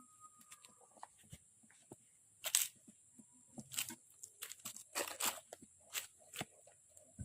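Intermittent rustling and crinkling handling noises close to the microphone, a string of short bursts with the loudest about two and a half and five seconds in, over a faint steady high hiss.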